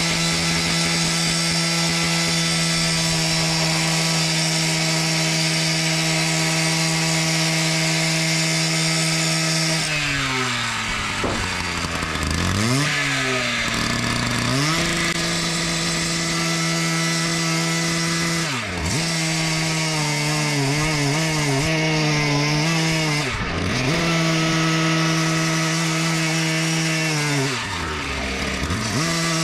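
Stihl TS410 two-stroke petrol cut-off saw with a metal-cutting disc, running at full throttle through 2-inch-thick steel. Its engine note holds steady for about ten seconds, then dips sharply and recovers several times as the disc works in the cut.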